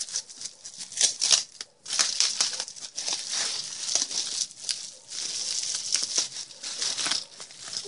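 Wrapping being crinkled and rustled by hand as a package is unwrapped, in irregular bursts that stop and start.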